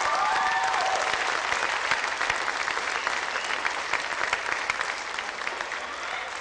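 Audience applauding, with a few cheering whoops in the first second, the clapping slowly dying down.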